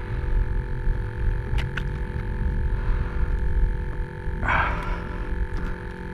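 Wind noise on the microphone, a steady low rumble with a constant electrical hum over it. There is a short hiss of noise about four and a half seconds in.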